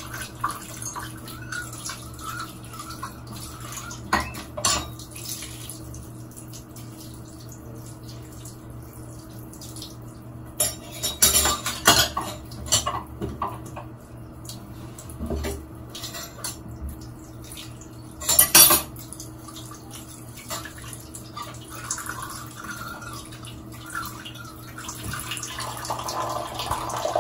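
A small mixing bowl and spoon being washed at a sink: scattered clinks and knocks of the spoon against the bowl, coming in a few clusters, with water running at times.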